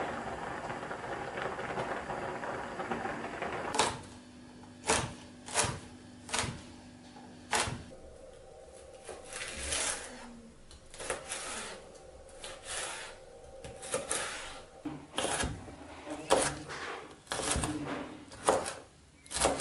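A steady hiss from a pot steaming on the stove for the first few seconds. Then a kitchen knife cuts and dices a red bell pepper on a plastic cutting board, each stroke a sharp knock of the blade on the board. The knocks come about a second apart at first and get quicker and closer together toward the end.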